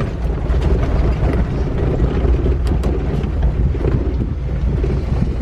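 Jeep Wrangler JK driving over a dirt off-road trail: a steady low engine and drivetrain rumble with scattered knocks, and wind buffeting the microphone.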